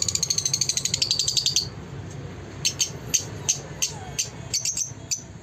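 Caged Fischer's lovebirds calling: a fast, high twittering chatter for about the first second and a half, then sharp high chirps, a few a second.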